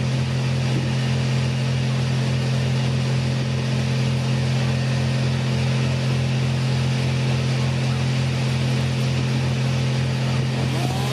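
An engine running steadily at one constant speed, with a regular low pulsing and no revving.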